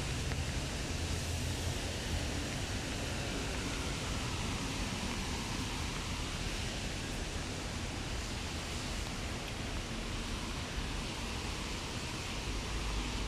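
Steady hiss of light rain, with a low rumble underneath.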